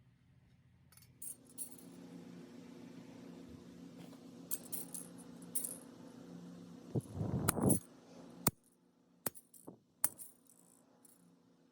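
Small brass metal fittings clinking and tapping during hand metalwork: a low steady hum for the first part, a short louder rasp about seven seconds in, then a few sharp separate metallic clicks.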